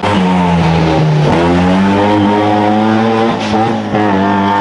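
Historic rally car engine running hard under acceleration, its pitch dropping and climbing again at a gear change about a second and a half in, with two more quick breaks in the note near the end.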